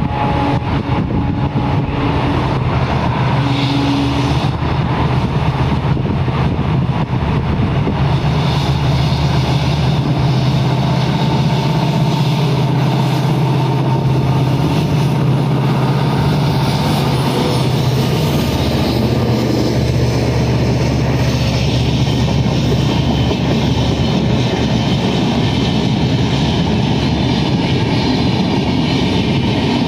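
Diesel locomotive engine running as it approaches and passes close by on a concrete bridge, its low hum strongest through the middle. It gives way to the steady rumble of passenger coaches rolling over the rails for the rest of the time.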